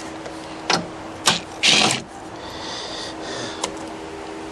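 Hand tools working metal on a car's front core support: two sharp metallic clicks, then a short rasping burst about two seconds in, with a steady hum underneath.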